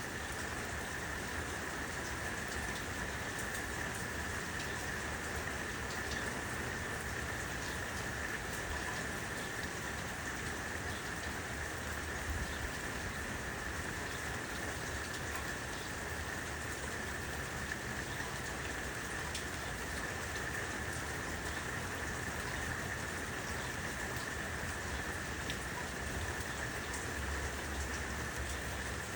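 Steady rain falling, with scattered drops ticking sharply here and there.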